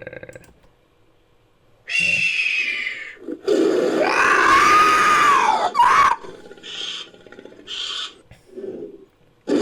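Invented creature calls for a humanoid hawk, mixed from the creator's voice and bird-of-prey and dinosaur sound effects. A short screech comes about two seconds in, then a long call that rises and falls in pitch, then two short high calls and a low grunt near the end.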